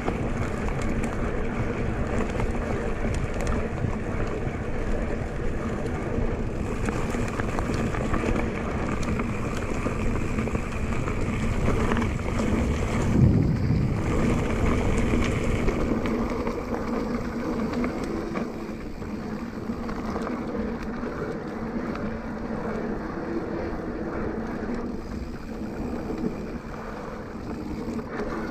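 Wind buffeting the action camera's microphone and riding noise from an electric mountain bike in motion, a steady low rush that swells briefly about halfway through.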